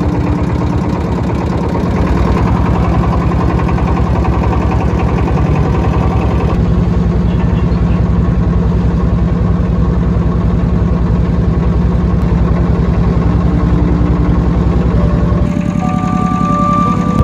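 A wooden river boat's engine running steadily as the boat moves across the water.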